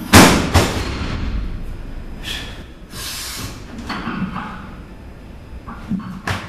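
A loaded 185 kg barbell crashes down onto wooden jerk blocks just after the start and knocks once more about half a second later. Near the end there are a few shorter thumps as the lifter's feet stamp into the split for the jerk.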